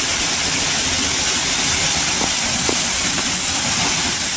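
Steady rushing of river water, an even hiss that never lets up.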